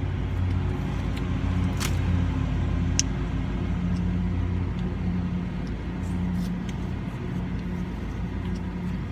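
A steady low engine hum heard from inside a closed car, swelling a little in the middle, with a couple of light clicks from the cup and spoon.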